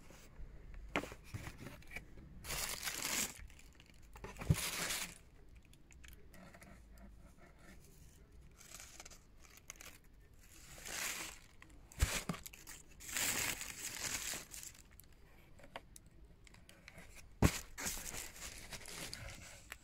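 Translucent protective wrapping crinkling and rustling in several bursts as a boxed item is handled, with three sharp knocks spread through.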